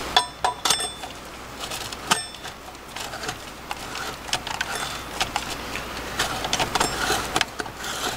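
Stainless steel stovetop coffee brewer's upper chamber being screwed onto its base by hand: metal threads scraping, with irregular small metallic clicks. A couple of ringing metal clinks come near the start.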